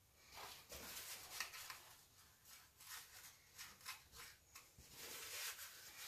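Near silence, with faint, irregular light scrapes and taps.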